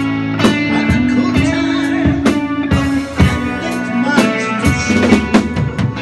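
Rock band playing live: electric guitar and electric bass with a drum kit, in a slow blues-rock style.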